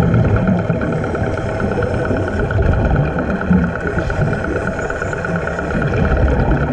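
An engine running steadily, heard underwater: a constant drone with a fast, even pulse, over a low, shifting water rumble.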